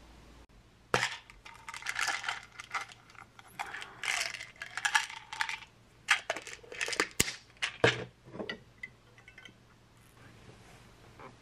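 Quick clusters of sharp clicking and rattling, like small hard objects knocking together, as a small white plastic bottle is handled. It starts about a second in and stops at about eight seconds.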